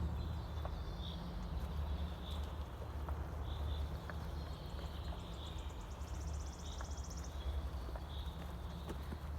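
Forest birds calling: a short high note repeated about once a second, and a brief buzzy trill about six seconds in. A steady low rumble runs underneath, with a few faint clicks.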